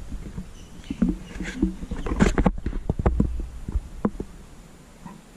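Handling noise from a handheld camera as it is carried around: irregular knocks, scrapes and rustles over a low rumble, growing quieter near the end.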